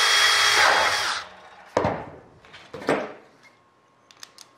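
DeWalt cordless drill running steadily with a high motor whine as it drills through an aluminium spar and rib, stopping about a second in. It is followed by two sharp knocks and a few light metallic clicks from tools being handled.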